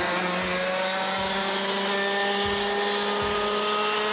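Two-stroke racing kart engines running at high revs. The main engine note holds high and climbs slowly, with a second, lower engine note steady beneath it.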